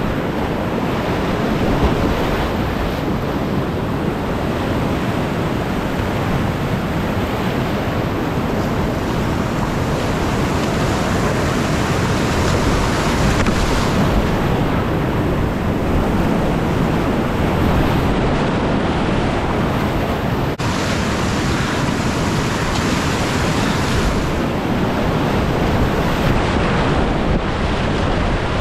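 Steady rush of Deschutes River whitewater rapids, heard close, with wind buffeting the microphone.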